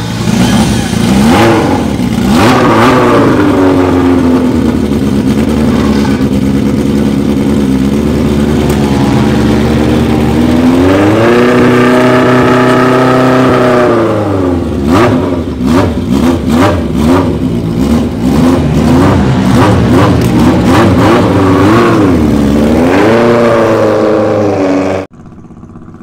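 Air-cooled inline-four engine of a classic racing superbike being revved hard, the pitch rising and falling with a run of sharp throttle blips. The sound cuts off abruptly near the end.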